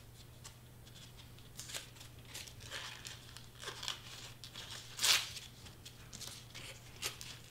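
Crepe-paper streamer rustling and crinkling in short bursts as it is folded and pressed by hand onto hot-glued foam board, the loudest rustle about five seconds in.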